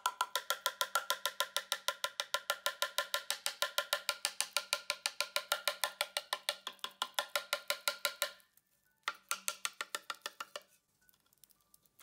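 Upside-down clear plastic bonbon mould tapped rapidly and evenly, about eight knocks a second, to shake the excess white chocolate out of the cavities when making the shells. The tapping runs for about eight seconds, pauses for about a second, then resumes for a second and a half.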